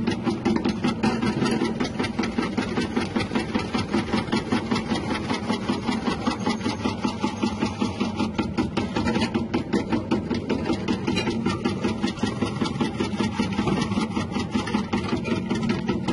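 Electric chip slicer running, its motor-driven blade making a fast, even clatter of about six beats a second over a steady hum.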